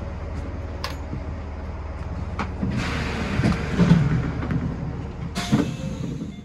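Electric commuter train standing with its equipment humming steadily, a few clicks, and hissing bursts of air about halfway through and again near the end. The sound then cuts off abruptly.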